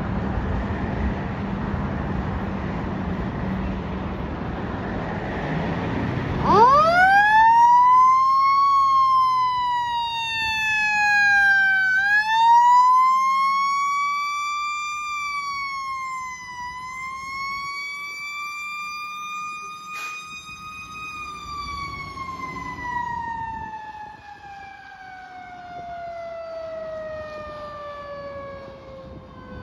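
A fire engine running before its siren winds up sharply about six seconds in. The siren wails up and down a few times, then falls in one long, slow drop in pitch, coasting down.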